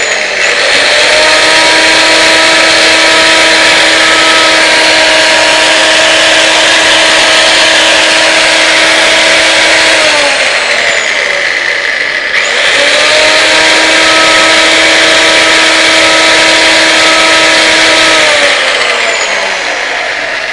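Parma 2 electric chainsaw running at full speed with a steady whine and a hiss over it, winding down after about ten seconds, then switched on again at once and run several more seconds before winding down near the end. A test run of the reassembled saw with its rewound armature.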